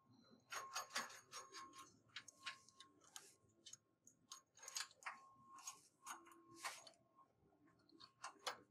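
Scattered, irregular light metallic clicks and taps as bolts and hardware are handled and fitted on a steel conveyor crossbeam and frame. The sound is faint throughout.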